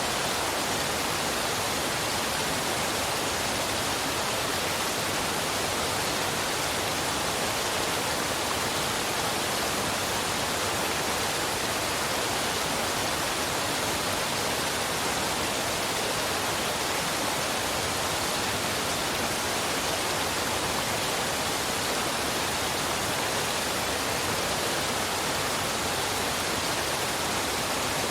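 Waterfall and river water rushing in a steady, even hiss that does not change.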